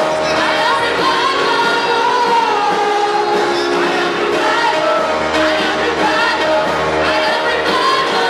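Gospel music with singing: voices carrying a melody over sustained musical accompaniment, continuous and steady in level.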